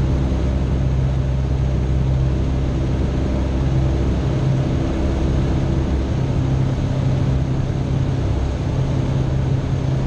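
A Citabria light aircraft's piston engine and propeller droning steadily in flight. The drone is a low, even hum over a constant rush of air noise.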